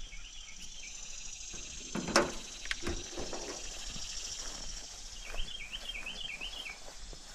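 Outdoor ambience of insects droning steadily at a high pitch, with a bird's warbling phrase heard twice, near the start and again about five seconds in. A single sharp knock sounds about two seconds in.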